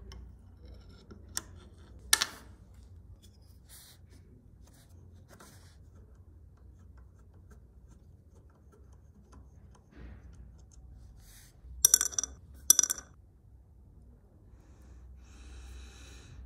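Small metal parts of an antique magnifying glass being handled on a wooden workbench. There are a few soft clicks and a sharp knock about two seconds in, then two ringing clinks less than a second apart, about twelve seconds in, as pieces meet a ceramic bowl, and a short rustling hiss near the end.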